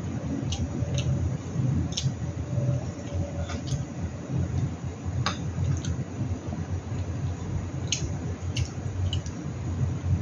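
Close-up eating sounds of soft, overripe mango: wet, squishy chewing and mouth noises, with sharp clinks of a metal fork against a ceramic plate about once a second.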